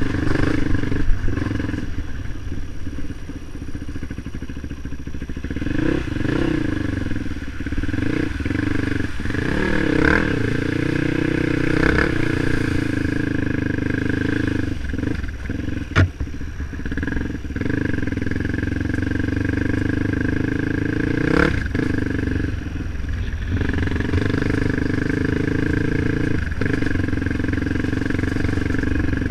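Off-road motorcycle engine running on a rough trail, its pitch rising and falling with the throttle. Several sharp knocks come through, the loudest a little past the middle.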